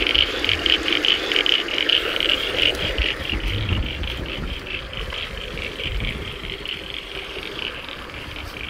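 Wind buffeting the microphone in low gusts, with a fast, high pulsing chorus of calls behind it that fades toward the end.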